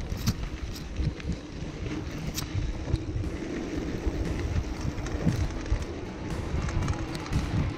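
Wind rushing over an action camera's microphone and mountain bike tyres rumbling over a dusty dirt trail on a fast descent, with scattered clicks and rattles from the bike.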